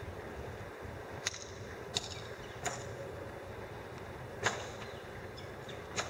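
Sharp metal knocks and clanks from metal concrete foundation wall forms being stripped, four of them at irregular intervals, the loudest about four and a half seconds in, over a steady low outdoor rumble.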